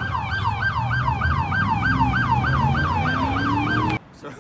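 Police car siren in its fast yelp mode, rising and falling about four times a second, over a low engine rumble; it cuts off suddenly near the end.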